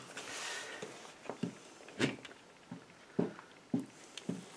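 Irregular light clicks and knocks, about eight or nine in a few seconds, from a vintage Tamiya Blackfoot RC truck's plastic chassis and wheels being handled and turned over on a workbench.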